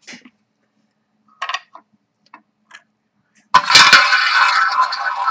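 A few light clicks, then a prize wheel is spun about three and a half seconds in: a sudden loud start followed by a continuous ringing, ticking run as it turns to pick a number.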